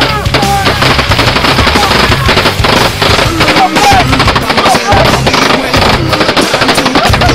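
Rapid, continuous automatic gunfire, many shots a second in close bursts.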